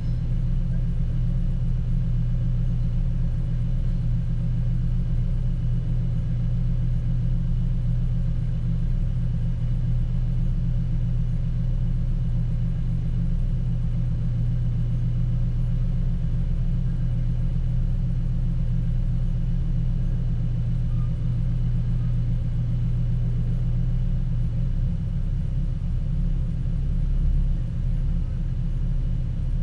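Car engine idling steadily, heard from inside the cabin as a low, even hum.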